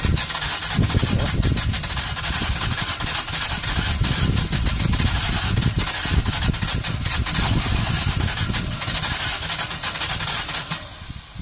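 Nissan Maxima engine being cranked by its starter for about ten seconds without catching, then the cranking stops abruptly near the end.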